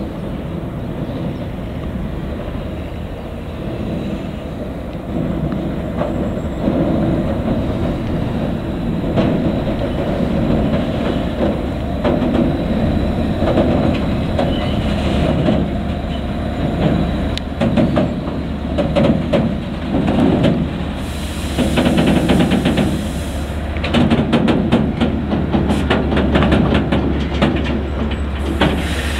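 Diesel shunting locomotive running steadily as it hauls a freight wagon slowly along the track, with a low engine hum. From about halfway through, the wheels click and rattle over the rails more and more often as the train comes closer.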